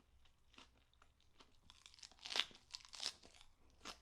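A person chewing a mouthful of garlic fried rice with kimchi and greens close to the microphone: scattered crisp crunches, the loudest a little after two seconds in and again around three seconds.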